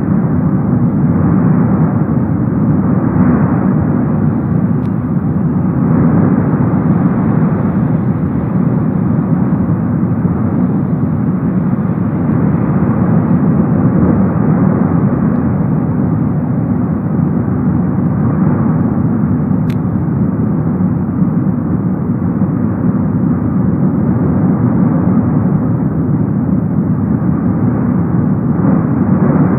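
Cumbre Vieja volcano's lava fountain roaring, a loud, steady, deep rumble that holds even throughout with no separate blasts.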